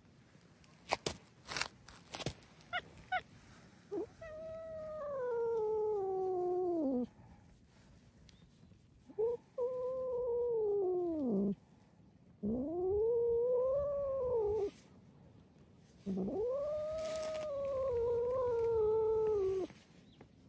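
A cat giving four long, drawn-out meows, each lasting two to three seconds. The first falls steadily in pitch; the later ones rise and then fall. A few sharp clicks come before the first meow.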